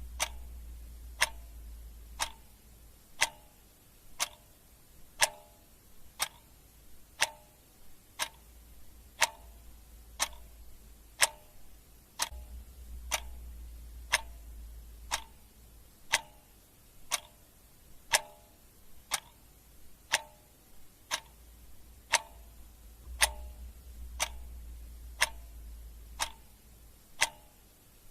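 Clock ticking sound effect: sharp, even ticks about once a second, each with a short pitched ring. A faint low hum comes and goes underneath.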